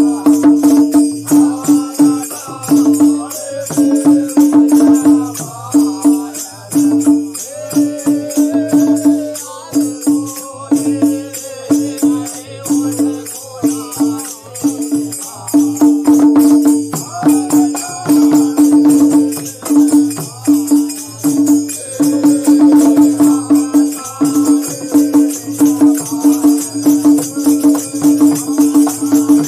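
Men singing a Bundeli faag folk song together, accompanied by a rope-tensioned dholak, a drum struck with sticks and jingling metal percussion keeping a steady beat.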